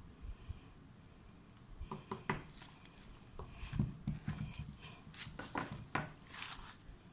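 Handling noise from cycling shoes and plastic packaging: a run of knocks and clicks against a wooden table mixed with plastic rustling and crinkling, starting about two seconds in.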